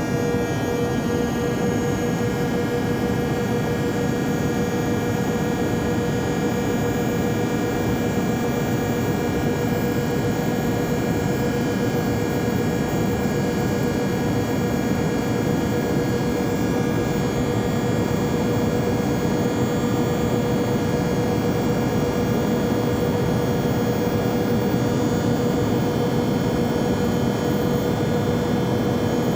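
Jet airplane noise: a steady, unchanging drone with a constant hum and several fixed high whining tones over it.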